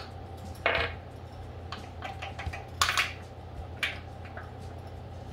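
A few light metal clinks and knocks, the loudest about three seconds in, as an Opel CIH distributor is worked by hand in its bore in the engine block. The distributor has not yet dropped in over the oil pump drive. A steady low hum runs underneath.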